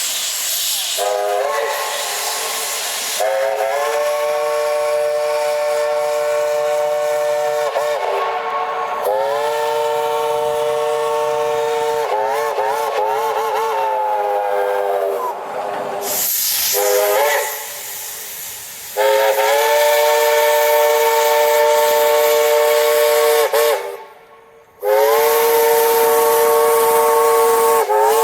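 Steam locomotive chime whistle sounding a series of about five long blasts with short gaps, several notes at once. One blast in the middle wavers up and down in pitch as the whistle is quilled. Steady steam hiss throughout.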